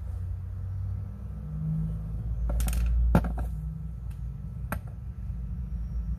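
A coin clicking and tapping against a small metal clamp holder as it is handled and reseated: a cluster of light clicks about halfway through, then two single clicks, over a steady low rumble.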